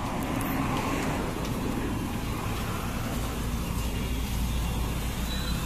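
Motor vehicle engine running, a steady low rumble that grows stronger about three seconds in.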